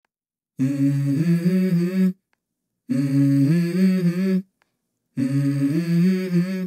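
A voice humming a short melodic phrase three times, with a silent gap after each, as part of a music track.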